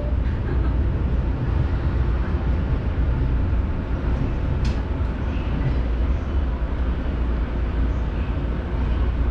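Steady low train rumble inside a JR Musashino Line carriage as a red-striped train passes on the adjacent track, with one sharp click about halfway through.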